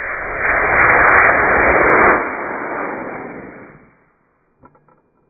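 Estes model rocket's black-powder motor burning as the rocket lifts off the launch rod: a loud, rushing hiss that peaks in the first two seconds, then fades away over the next two as the rocket climbs.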